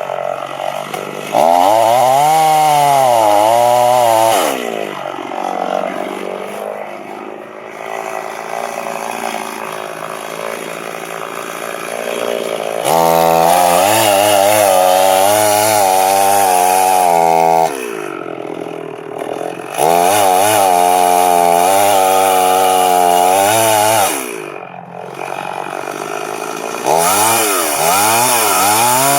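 Two-stroke chainsaw cutting the felling notch into a tree trunk, redoing the bottom cut: the throttle is opened in four long bursts of several seconds each, the engine pitch wavering as it bogs and recovers under load, dropping back to idle in between.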